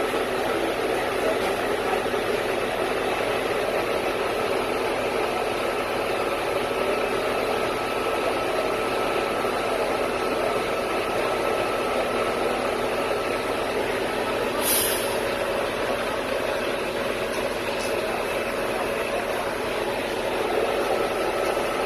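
Concrete mixer truck running steadily: a loud, even mechanical drone with a faint constant whine. A brief hiss comes about two-thirds of the way through.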